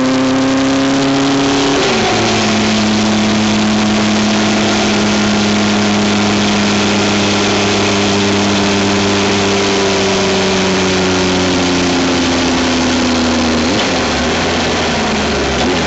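Motorcycle engine pulling harder and rising in pitch, then shifting up about two seconds in and running at a steady, slowly easing speed, with another gear change near the end. Wind and road noise rush over the microphone throughout.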